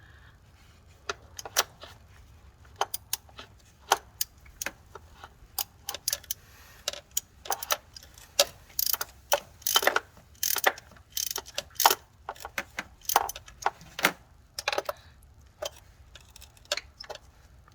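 Hand ratchet clicking in short irregular runs while a tight spark plug is worked loose, with the metal ticks of the tool against the plug socket.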